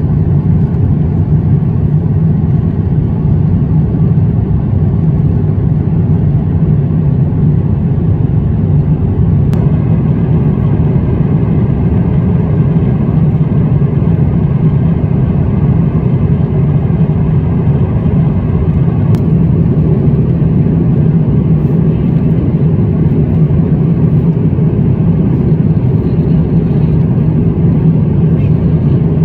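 Steady low rumble of an Airbus A350-900 under way, heard from inside the passenger cabin, with its Rolls-Royce Trent XWB engines running. A few faint high steady tones sit over the rumble in the second half.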